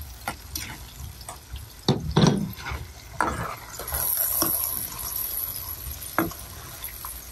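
Metal ladle stirring a simmering sauce in a wok, scraping and clinking against the pan at irregular moments, the loudest pair of knocks about two seconds in, over a light sizzle of the bubbling sauce.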